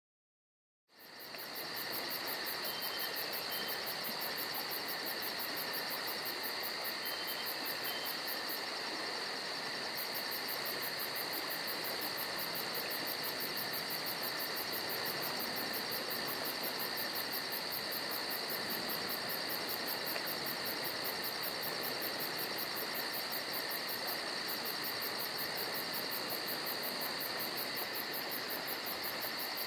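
Steady chorus of chirping crickets, fading in about a second in, with a fast, even pulsing in its highest part.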